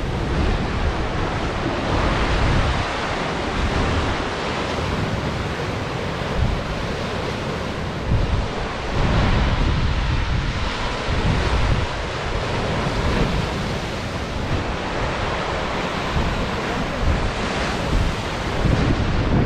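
Lake Erie surf breaking in a continuous wash, with gusty wind buffeting the microphone in uneven low rumbles.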